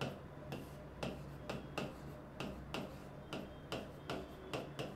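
Stylus tips tapping and clicking on the glass screen of an interactive display while handwriting is written, a quick uneven run of light ticks, about three a second.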